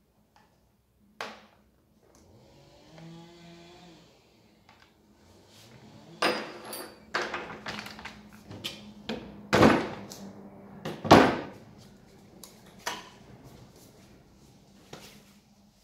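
Clicks, scrapes and knocks of a chainsaw and screwdrivers being handled and set down on a wooden workbench, with three loud knocks in the middle.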